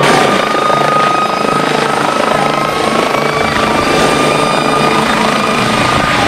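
Medical helicopter running close by: a loud, steady noise of engine and rotor with a high turbine whine.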